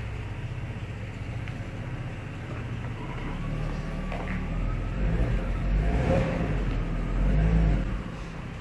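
Jaguar XJ40 XJ6's straight-six engine running as the car is manoeuvred at low speed, growing louder from about five seconds in with light revving before easing off near the end.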